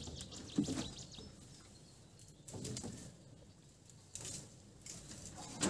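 Faint, intermittent rustling and small knocks of branches and leaves being handled by hand, with the odd creak or bump from the boat underfoot.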